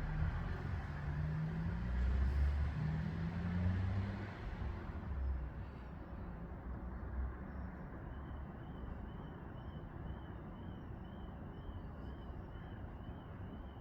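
A motor vehicle passes close by, its engine note rising then fading away by about five seconds in. From about eight seconds in, a high, evenly repeated chirp sounds about twice a second, typical of a songbird calling over quiet street background.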